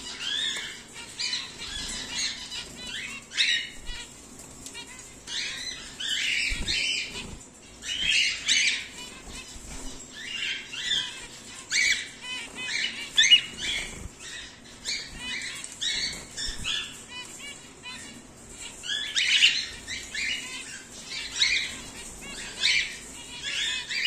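A mixed cage of cockatiels and zebra finches calling: many short chirps in quick, irregular runs with brief pauses between them.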